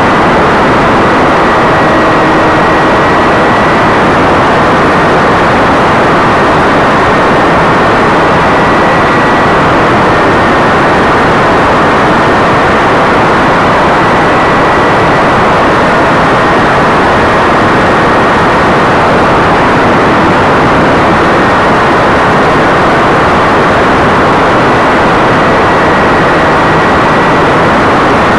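Loud, steady rush of motor, propeller and airflow noise from a Ripslinger RC plane in flight, recorded by a camera riding on the plane, with a faint high whine on top.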